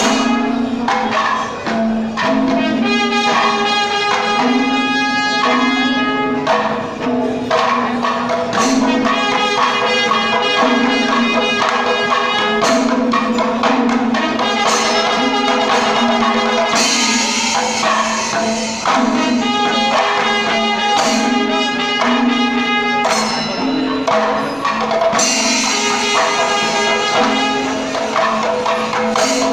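Panchavadyam temple ensemble playing without a break: drums and ilathalam brass cymbals clash in a fast, dense rhythm under sustained tones from the kombu horns.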